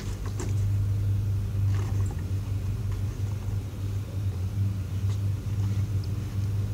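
A steady low hum with a droning pitch throughout, with a few faint taps and scrapes as a cardboard box is picked up and handled.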